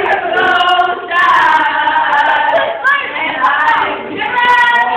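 A group of girls singing together unaccompanied, holding long notes, captured on a mobile phone.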